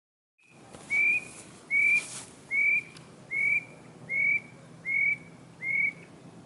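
A bird calling with a short, clear whistled note that rises slightly, repeated seven times at an even pace of a little over one per second.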